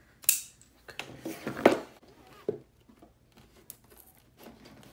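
Cardboard LEGO set box being turned over and laid flat on a tabletop: a series of short knocks and scrapes, the loudest about a third of a second in and near the middle. Smaller scratches follow as a knife is worked under the box's sealed flap.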